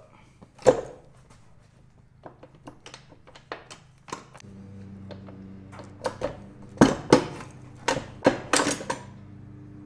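Metal clinks and clanks of a Honda H22 Prelude transmission's gear set, both shafts with their gears and synchros, being wiggled and lifted up out of the case. The sharpest clanks come in a cluster near the end, and a low steady hum sets in about halfway.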